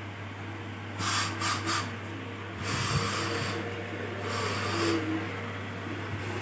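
Several short bursts of hiss over a steady low hum: three quick ones about a second in, then two longer ones.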